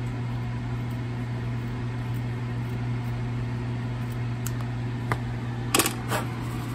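Small thread snips clipping the excess fabric from a knee pad, heard as a few faint clicks over a steady low hum, with a louder click about six seconds in as the pad is handled.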